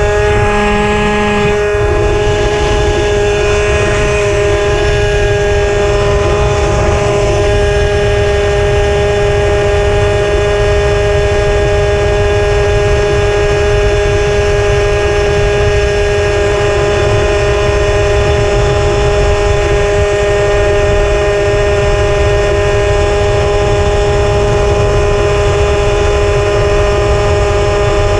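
Puch Maxi moped's single-cylinder two-stroke engine running at a steady high speed while riding, its buzz holding one pitch throughout. Heavy low wind rumble on the microphone underneath.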